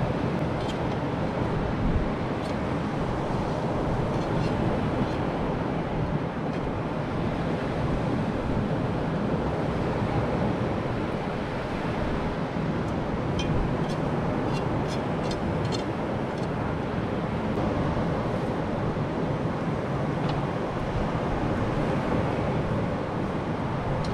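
Steady wind rushing over the microphone mixed with breaking surf. A run of light clicks about halfway through, from a metal spatula and knife touching as cooked fish is lifted onto a plate.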